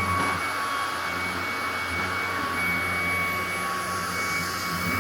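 Hoover Commercial CH91600 40-volt cordless upright vacuum running steadily: a rush of air with a steady high whine from its brushless motor.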